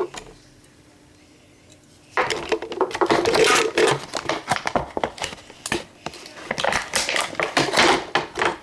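Plastic Beyblade packaging and parts being handled: a click, then about two seconds later a dense stretch of rapid clicking, rattling and crinkling.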